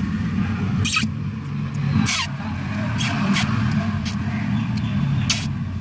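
Steady low rumble like road traffic, with about six short, sharp high-pitched sounds scattered through it.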